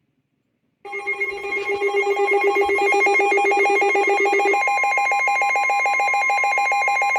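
Weather radio alert alarm: a loud electronic tone pulsing rapidly, with a steady tone beneath it, heralding an incoming severe thunderstorm warning. It starts abruptly about a second in, and its lowest tone drops out about halfway through.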